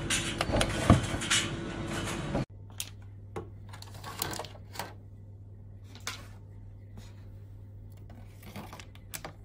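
Snack vending machine humming, with a sharp clack about a second in as a drum-select button is pressed. After a sudden change to a quieter hum, wrapped snack packs rustle and click against the plastic compartments of a vending-machine drum as they are slid in.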